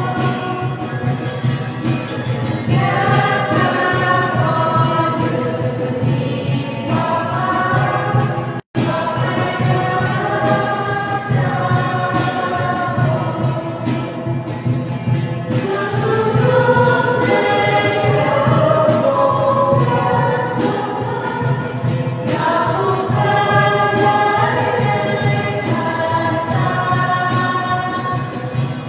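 A choir singing a hymn continuously, with a momentary cut-out in the sound about nine seconds in.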